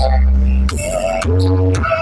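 Bass-heavy electronic music played through a large carnival sound system at a sound check: two long, deep bass notes with short sharp hits between them.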